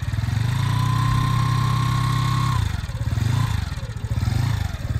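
Motorcycle engine revving hard under load as it strains on a tow rope to pull a car stuck in mud. The revs hold steady with a thin whine over them for about two seconds, then drop and come in short surges.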